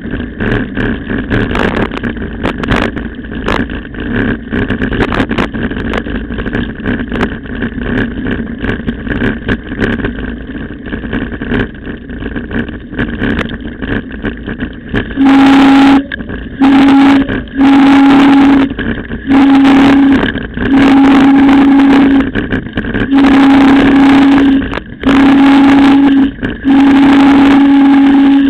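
Mountain bike rattling and clicking over a gravel dirt road with wind rush. From about halfway, a very loud low brake squeal comes on and off in repeated pulses of under a second to about a second and a half, as the brakes are applied again and again going downhill.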